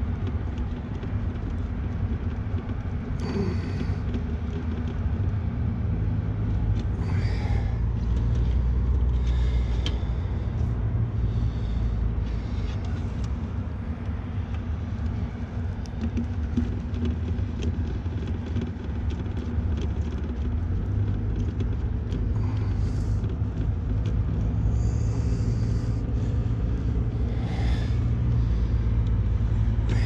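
Steady low rumble, swelling a little at times, with scattered light clicks and rustles from gloved hands handling wires and terminals in an HVAC control panel.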